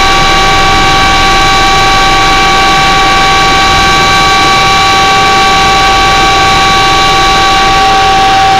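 Passenger aircraft engines heard from inside the cabin: a steady rushing noise with a high, even whine of several tones, as the plane is on the runway.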